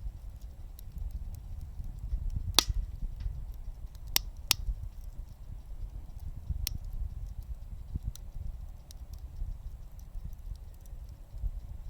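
Wood gas stove burning firewood: a fluttering low rumble of the flames with scattered crackles and a few sharp pops from the wood, the loudest about a third of the way in.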